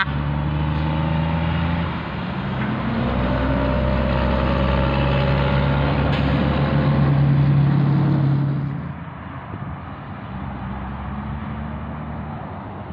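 Heavy diesel semi truck engine running loud and steady as the truck pulls a lowboy trailer past, the engine note rising briefly about two seconds in. It cuts off about nine seconds in, leaving quieter steady road traffic.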